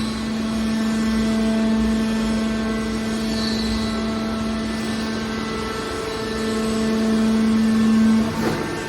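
Hydraulic scrap metal baler's power unit running with a steady hum, swelling slightly near the start and again toward the end before it changes shortly before the end.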